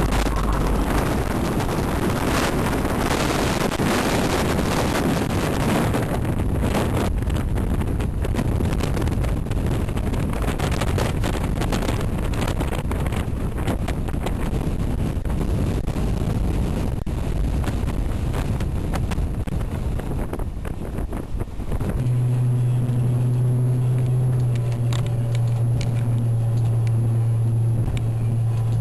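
Gale-force wind of 15 to 16 metres per second buffeting the microphone over rough, churning sea. About two-thirds of the way through it cuts to a boat's engine running steadily, with wind still on the microphone.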